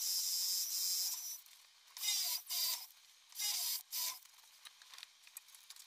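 Ryobi R18PD7 18 V cordless drill boring into a wooden board with a long wood bit. The motor whines steadily for about a second and a half, then comes in four short trigger bursts in two pairs, about two seconds in and near four seconds.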